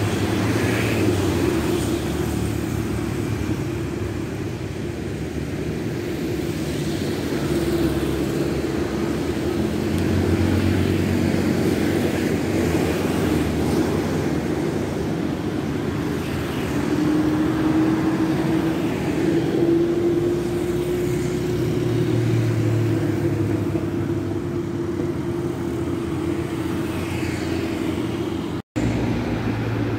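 Road traffic on a busy street: cars and motorbikes passing, a steady engine and tyre hum with a vehicle's drone that rises slowly in pitch now and then. The sound cuts out for an instant near the end.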